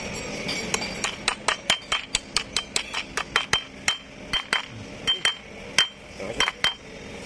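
Steel hammer tapping a ball bearing down into a bevel gear assembly to seat it: a run of quick, light metal-on-metal taps, about three or four a second, thinning out near the end, many with a short metallic ring.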